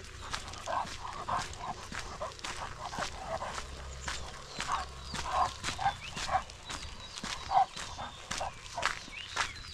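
A Labrador giving short, repeated barks and yips, the loudest about three-quarters of the way through, over crackling steps and faint bird chirps.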